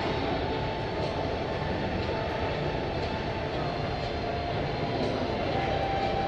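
Steady jet airliner engine noise, a continuous rumble with a faint high whine running through it.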